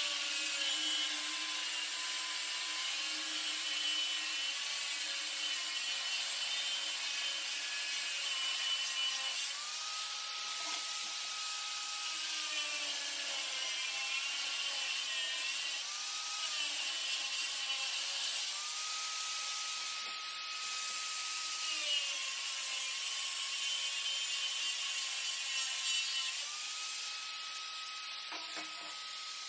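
Angle grinder with a cut-off disc cutting through a steel tractor exhaust pipe and its heat shield: a continuous whine with a gritty hiss. The pitch sags while the disc bites and rises three times as the load comes off, and the grinder runs lighter near the end.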